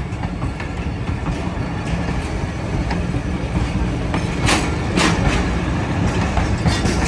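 Pakistan Railways passenger coaches rolling past close by: a steady rumble of steel wheels on the rails, with two sharp clacks a little past halfway.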